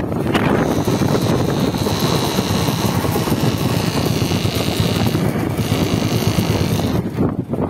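Royal Enfield Meteor 350's single-cylinder engine running with road rumble while the rear brake is pressed at low speed, giving a high-pitched whirring noise for about five seconds. The service station puts the noise down to the dual-channel ABS and calls it normal.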